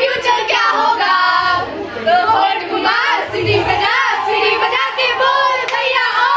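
Several young women singing together, loudly.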